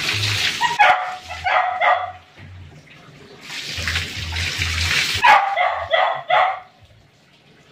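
Water poured from a container splashing over a wet dog, twice, each pour followed by a dog barking a few times.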